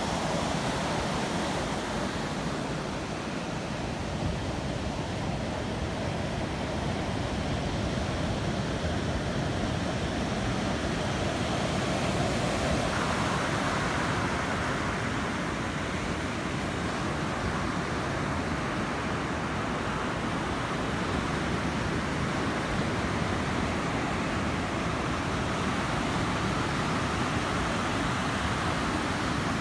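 Ocean surf breaking on a sandy beach: a steady, continuous rush of waves.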